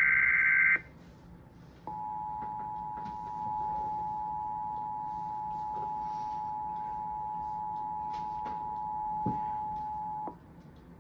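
The last burst of the EAS digital SAME header, a screeching data tone, ends under a second in. After a short gap, the two-tone EAS attention signal (853 and 960 Hz together) sounds steadily for about eight seconds and then cuts off, announcing a tornado warning broadcast.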